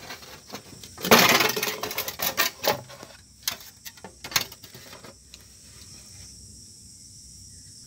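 Handling noise from an opened digital weighing scale's plastic and metal housing being moved about: a loud rattle about a second in, then scattered clicks and knocks over the next few seconds.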